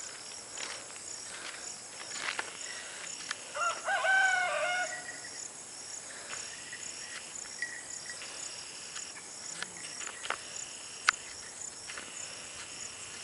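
A rooster crows once, about four seconds in, over a steady pulsing chirr of insects.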